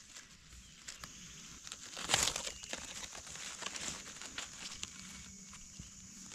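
Dry leaf litter rustling and crackling as a gloved hand digs out and pulls up a mushroom from the forest floor, with a louder crackle about two seconds in.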